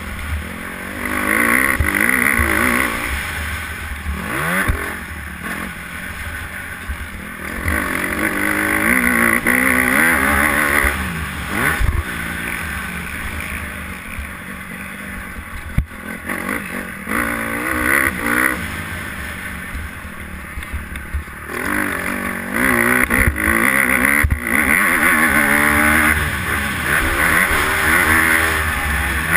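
Honda motocross bike engine revving up and down as it is ridden around a dirt track, its pitch rising and falling again and again with the throttle. It is quieter for several seconds in the middle, then loud again near the end.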